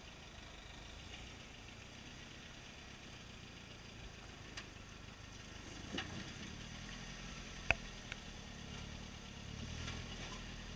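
Toyota 4x4 pickup's engine running at low revs as the truck crawls over a boulder, picking up a little near the end. A few sharp clicks and knocks, the loudest about eight seconds in.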